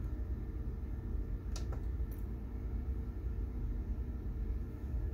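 Steady low hum of a running computer, its fans and power supply, with two faint clicks about a second and a half and two seconds in.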